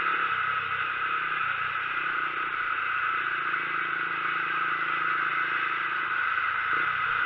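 Steady wind rush on the microphone while riding a motorcycle, with the motorcycle's engine running evenly and faintly underneath.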